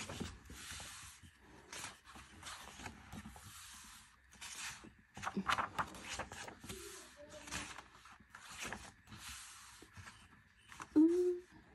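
Glossy paper pages of an album photobook being turned one after another, each turn a short papery swish, about one a second. Near the end a brief hummed voice sound.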